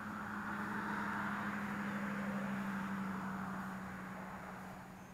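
A distant engine passing by, a steady low drone that swells over the first couple of seconds and then slowly fades.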